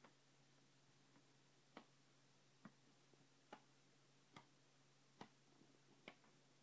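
Near silence with faint, evenly spaced ticks, a little more than one a second.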